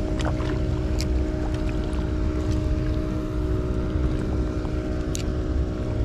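Wind buffeting the microphone as a steady low rumble in strong wind and rain, over a faint steady hum. A few light clicks come from the spinning reel being handled.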